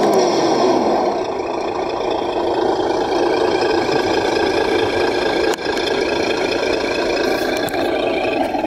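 Radio-controlled 6x6 crawler truck driving: a steady drivetrain and tyre rumble with a high electric motor and gear whine that wavers slightly in pitch. A sharp click about five and a half seconds in.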